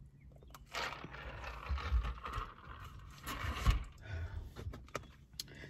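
Drinking water from a plastic cup, then the cup lowered and the plastic takeout tray handled: rustling and scraping with a couple of low knocks, then a few light clicks near the end.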